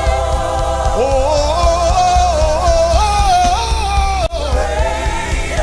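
Live gospel worship music: a singer holds a gliding melody over a band with a steady bass pulse, with a brief drop in the sound a little over four seconds in.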